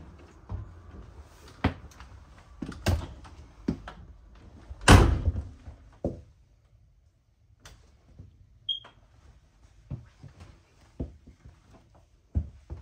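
Travel trailer entry door and fittings knocking and clicking, with the loudest thunk, a door being shut, about five seconds in, followed by a few fainter clicks and knocks.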